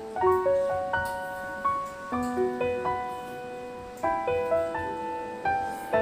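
Background piano music: single notes and chords struck one after another, each fading after it starts.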